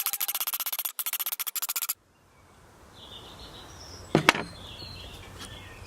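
Rapid, even rasping strokes of a hand file on a steel lawnmower blade, cutting off abruptly about two seconds in. Then quiet outdoor ambience with faint bird chirps and a single knock a little after four seconds.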